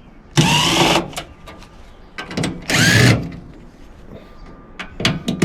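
A cordless drill/driver runs in short bursts of about half a second, twice, each with a rising whine, as it backs the case screws out of a small microwave's sheet-metal shell. Light metal clicks and handling knocks come between the bursts.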